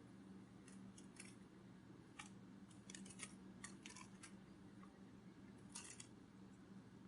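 Near silence: faint, irregular crisp ticks and rustles, some in quick little clusters, over a low steady hum.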